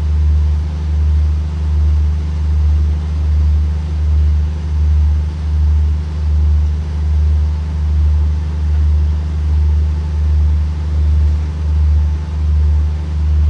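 Diesel engines of a standing passenger train idling: a steady low drone that swells and fades about once a second.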